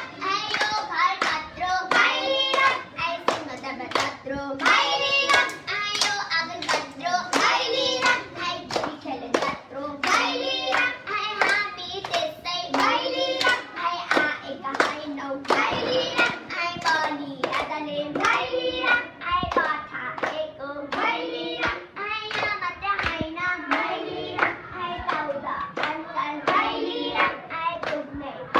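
A group of girls singing a Nepali Bhailo song together, clapping a steady beat with their hands.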